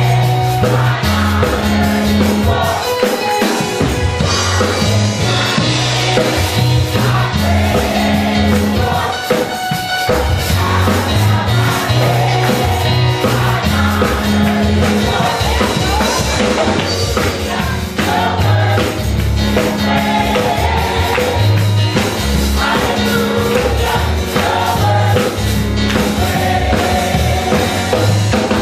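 Gospel choir singing with instrumental backing: repeating bass notes under a steady beat, with hand-clapping along.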